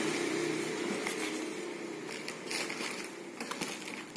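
Paper manual and warranty card being handled, rustling, with a few light clicks and taps on the wooden table. A faint low hum fades out over the first couple of seconds.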